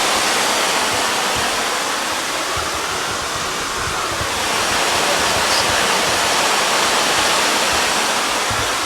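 Waterfall: water pouring over a drop, a steady loud rushing noise.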